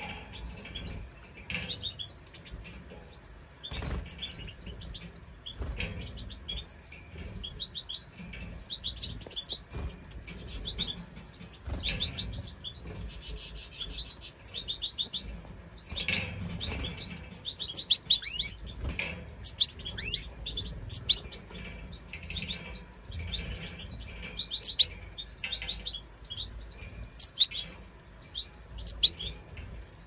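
European goldfinches of the large Major form chirping: rapid, high twittering calls throughout, busiest and loudest in the second half. A few dull knocks come from the nest and cage being handled.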